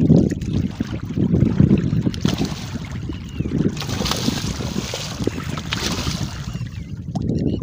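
A hooked fish thrashing and splashing at the surface of shallow water as it is landed by hand. The splashing runs from about two seconds in to near the end, over a steady low rumble of wind on the microphone.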